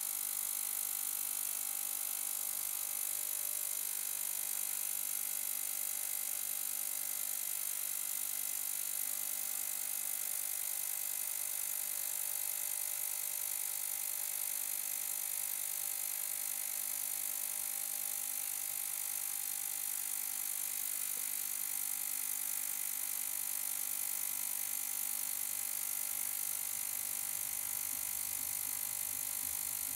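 GT Sonic 750ml ultrasonic cleaner running its cleaning cycle on a cafetiere plunger in water. It makes a steady buzzing hum with a high hiss that stays even throughout.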